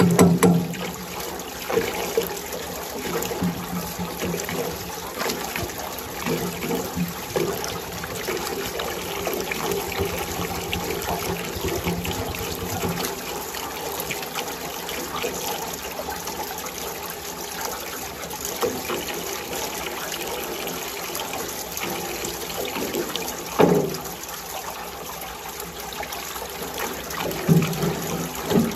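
Water running and trickling steadily, with a couple of sharp knocks in the last few seconds.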